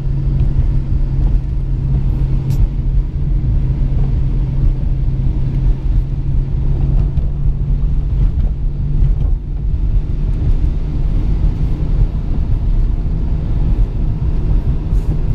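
Steady in-cabin driving noise of a car on a wet road in heavy rain: a low engine-and-road drone with the hiss of tyres on wet pavement and falling rain.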